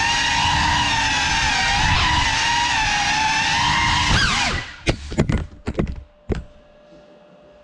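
Geprc Cinelog 35 6S cinewhoop's motors and ducted propellers whining steadily for about four seconds, then the pitch drops sharply and several sharp knocks follow as the drone crashes and comes to rest.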